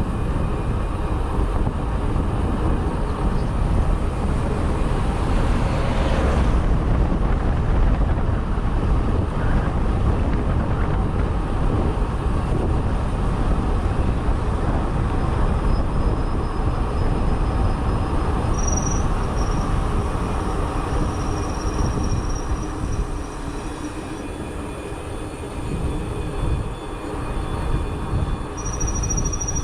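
Wind rushing and buffeting over the microphone of a bicycle rider coasting fast downhill. The rush eases a little in the second half, and a steady high insect trill comes in near the end.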